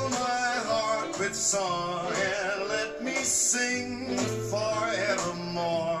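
A recorded song with a sung vocal line over instrumental accompaniment, played back through a pair of Infinity SM65 bookshelf speakers and picked up in the room.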